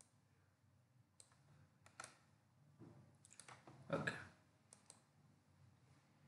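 Faint computer mouse clicks, a few scattered over several seconds, with a louder, softer noise about four seconds in.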